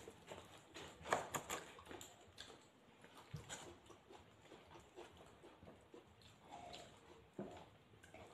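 Faint eating sounds: a person chewing mouthfuls of a shawarma wrap, with scattered soft clicks and rustles as pieces of the flatbread are torn off by hand.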